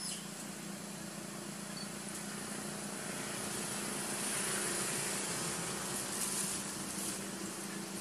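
Steady background hiss with a low hum, growing louder for a few seconds in the middle and then easing off.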